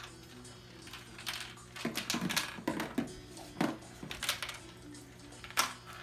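Marbles rolling down a plastic marble run, clicking and clacking against the track pieces in an irregular series of sharp clicks, the loudest one about five and a half seconds in.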